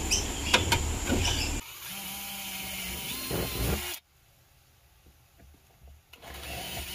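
Cordless drill running, boring 3 mm holes into a fibreglass jet ski hull, with a few sharp clicks in the first second or so. About four seconds in, the sound drops to near silence for around two seconds before coming back.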